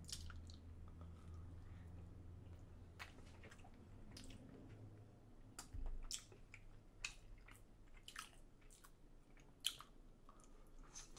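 Faint chewing and mouth sounds of a person eating a custard egg tart, with scattered soft clicks and smacks, a couple of them a little louder.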